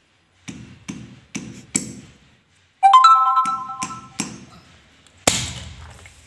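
Gundu soda (Codd-neck marble-stoppered glass bottle) being opened: a plastic opener is knocked down on the neck several times, a clear ringing tone sounds about three seconds in, and about five seconds in the glass marble is pushed in with a sharp pop followed by the hiss of escaping gas.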